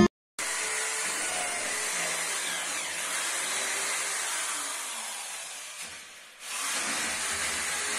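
Corded electric drill running as it bores into a plastered wall, a steady noise. About six seconds in it slowly dies away, then starts again sharply.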